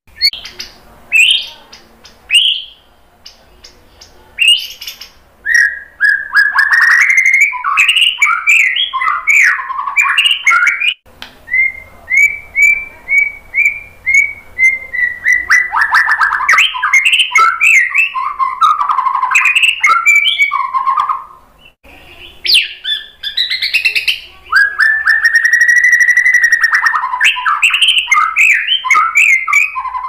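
Male white-rumped shama singing: a few short chirps, then long, loud runs of varied whistled phrases. The song pauses briefly a little after the middle, then resumes, with a long, held, slightly rising whistle near the end.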